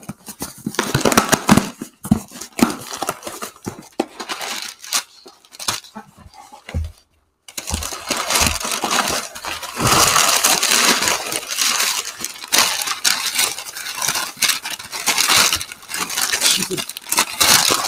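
A cardboard shipping box being opened and crumpled brown kraft packing paper rustled and pulled out, with irregular crinkles and scrapes. There is a brief dropout about seven seconds in, after which the paper rustling is dense and continuous.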